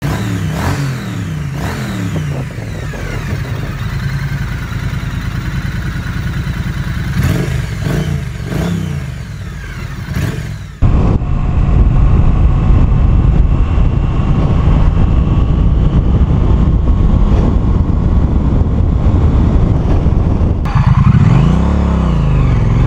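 Triumph Street Twin's 900 cc parallel-twin engine running, its pitch rising and falling with the throttle. About eleven seconds in, the sound cuts to riding, with a loud low rumble of wind on the mic over the engine. Near the end the engine note dips and then climbs as the bike accelerates hard.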